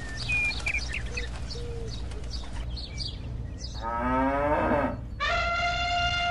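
Cattle mooing twice, the second moo longer and falling in pitch at its end, after a few seconds of scattered bird chirps.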